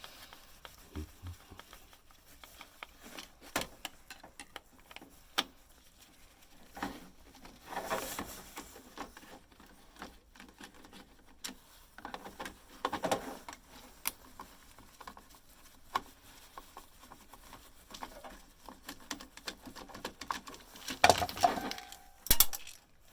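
Hands taking apart a bread maker: scattered clicks, knocks and rattles of plastic and metal parts being handled and set down, with a few louder bouts of clatter.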